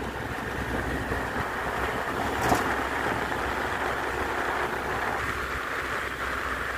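Steady road and wind noise from a moving vehicle, with one brief knock about two and a half seconds in.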